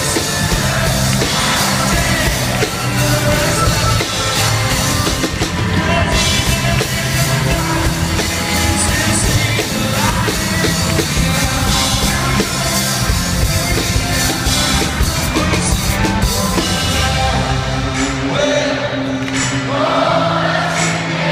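Live band music: piano and drum kit playing with a voice singing over them. Near the end the drums and cymbals drop away, leaving piano and held singing voices.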